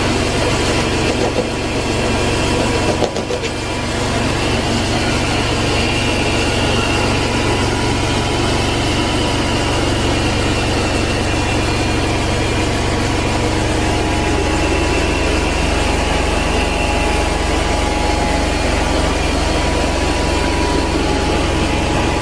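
Carpet-cleaning extraction equipment running steadily: a loud vacuum and motor drone with a faint steady whine. It dips briefly about three seconds in.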